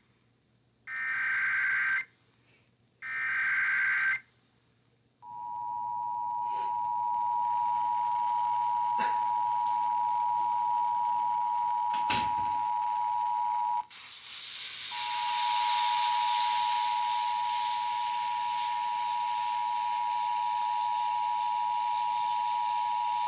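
Emergency Alert System signal received over the radio: the last two of three SAME header data bursts, then the two-tone attention signal (853 and 960 Hz together) held steadily, broken briefly about 14 seconds in. A few sharp crackles fall over the tone, and a hiss rises under it in the second half.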